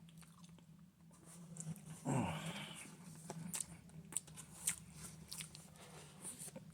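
Eating sounds: small mouth and utensil clicks while cake is chewed. About two seconds in comes one short vocal sound that falls in pitch.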